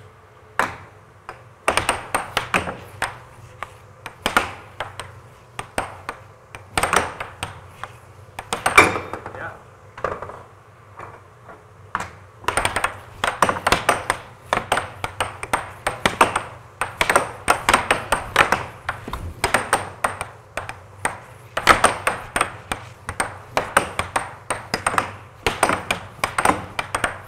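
Air hockey rally on a Gold Standard Games 7-foot Tournament Pro table: the plastic puck clacking against the mallets and banging off the rails in rapid runs of sharp knocks, with a short lull about ten seconds in. A steady low hum from the table's air blower runs underneath.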